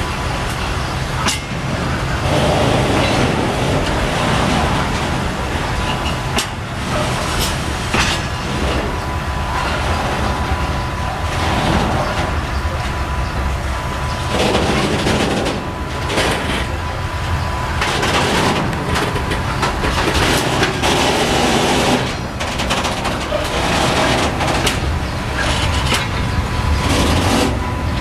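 Covered sliding-wall freight wagons rolling past at close range: a steady rumble of wheels on rail, with many short clicks and knocks as the wheels run over rail joints, and a faint high whine that comes and goes.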